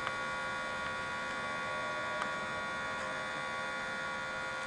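Steady electrical mains hum, a buzz with many evenly spaced overtones, picked up in the recording of a camcorder running on a power cord. A couple of faint ticks, one just after the start and one about two seconds in.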